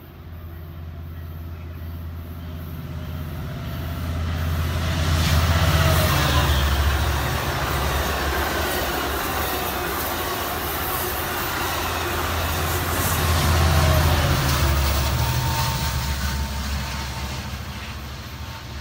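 Diesel-hauled Amtrak passenger train approaching and passing at speed. The rumble builds, is loudest as the locomotive goes by about six seconds in, and carries on as a steady rush of wheels on rail with tones that fall in pitch. It swells again near the end of the train and then fades.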